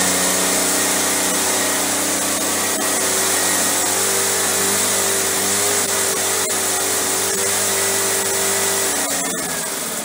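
Echo PB-500T backpack blower's two-stroke engine running steadily on its replacement Hipa carburetor, now started after a no-start fault. About nine seconds in, the engine note changes and drops a little in level.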